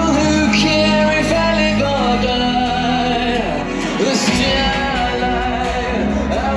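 Loud show soundtrack music with a singing voice.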